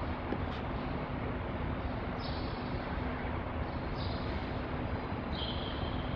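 Steady hiss with a faint low hum: the background noise of an old, worn videotape recording.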